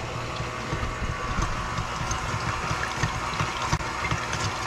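KitchenAid stand mixer running steadily with its whisk attachment, whisking honey garlic wing sauce in the bowl: a steady motor hum with the liquid splashing against the bowl.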